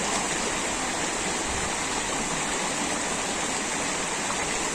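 Shallow mountain stream running over rocks: a steady, even rush of water with no breaks.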